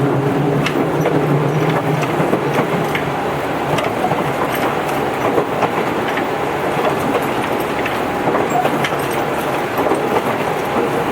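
Tobu 8000 series electric train running, heard from inside the car: steady wheel-and-rail rolling noise with rail-joint clicks. A low, several-toned motor hum fades after about two seconds.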